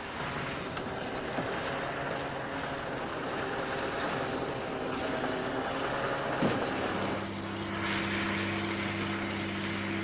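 An engine running steadily; its note changes and settles about seven seconds in.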